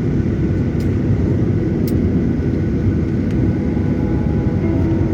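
Steady low rumble of cabin noise inside a Boeing 737-900ER, with three faint clicks.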